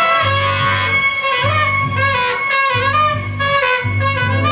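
Live band music: a trumpet plays a gliding melody over a repeating bass line and guitar.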